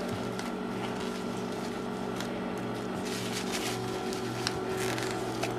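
A low hum that breaks off and returns about once a second, with a few faint crinkles and clicks as a cat chews and kicks a crocheted mouse toy stuffed with crinkly paper.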